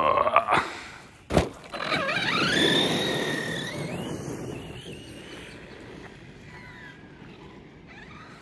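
Rival MT8 RC monster truck running on 6S: its electric motor and drivetrain whine up in a short burst, then a sharp knock comes about a second and a half in. After that a long whine rises steeply in pitch as the truck accelerates, then fades and wavers up and down in pitch.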